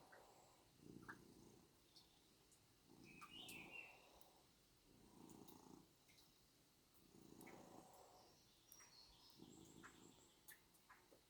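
Tomcat purring, faint. The purr swells on each breath about every two seconds. There is a brief high squeak about three and a half seconds in.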